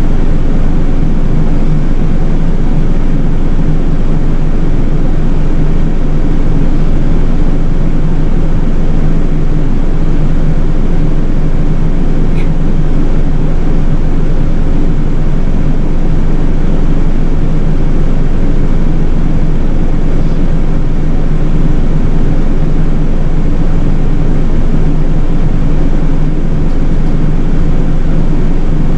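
Nishitetsu city bus running steadily, its engine drone and road noise heard from inside the cabin, with one brief click about twelve seconds in.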